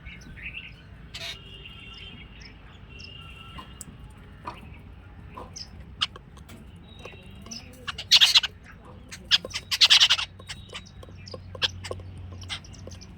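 Jungle babblers calling: a scatter of short chirps and squeaks, with two loud harsh chattering bursts about 8 and 10 seconds in.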